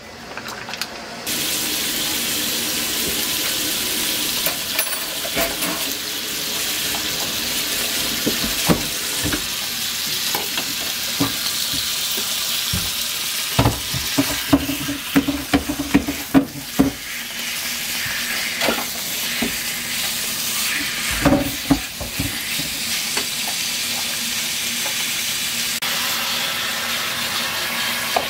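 Meat frying in a hot pan, sizzling steadily from about a second in. A metal utensil knocks and scrapes against the pan as the meat is stirred, with the knocks thickest from about 8 to 17 seconds in and again near 21 seconds.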